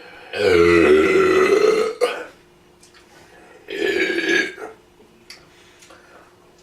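A man belching loudly twice after drinking beer: a long burp of about a second and a half, then a shorter one about three seconds later.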